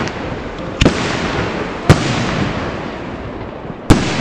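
Aerial firework shells bursting overhead: three sharp bangs, about one and two seconds apart, over a continuous noisy rumble.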